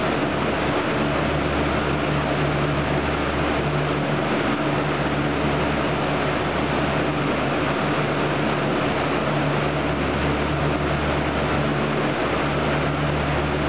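Steady fan-like machinery noise, with a low hum that drops out briefly several times.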